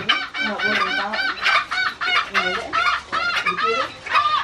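Junglefowl clucking in a fast, steady run of short calls, about four a second.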